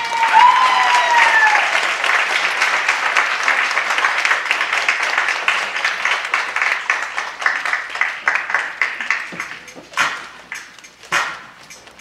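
Applause from an audience and a gospel choir after a song ends: a dense patter of many hands clapping that thins out after about nine seconds into a few scattered single claps.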